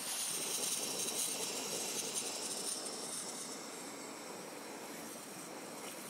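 A train passing at a distance: an even rushing noise, loudest in the first couple of seconds, that dies down as it moves away.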